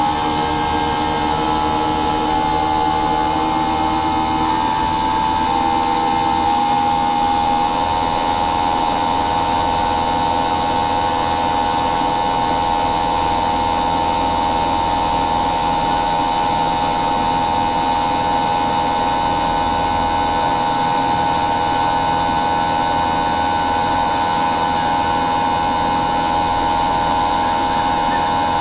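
A motor-driven machine running steadily. Its whine shifts in pitch a few times over the first several seconds, then holds at one pitch over a constant hum.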